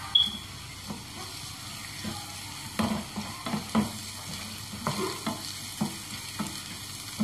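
Sliced onion sizzling in hot oil in a nonstick frying pan, a steady hiss. A sharp clink just after the start as the onion is tipped in off a plate, then scattered scrapes and knocks of stirring in the pan.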